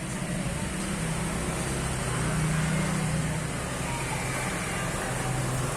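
Steady low hum of a running engine, with a noisy background like road traffic.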